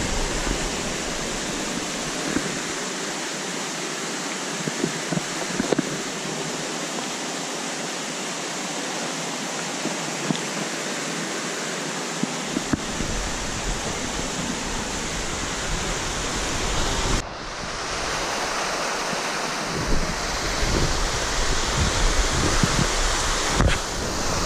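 Steady rush of flowing water, with wind buffeting the microphone during the first couple of seconds and again from about halfway on, and a few faint knocks.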